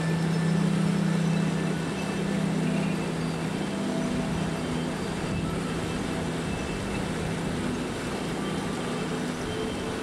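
River water rushing steadily over a shallow riffle, with soft ambient synth music of long held notes over it.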